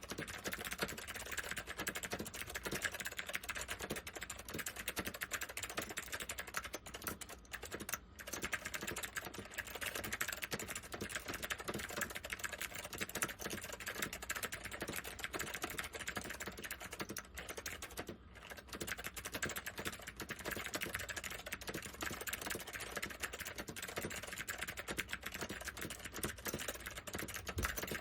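Continuous typing on a Northgate OmniKey 101 keyboard with wax-boiled SKCM White Alps switches: a dense stream of keystrokes, with brief pauses about 8 and 18 seconds in.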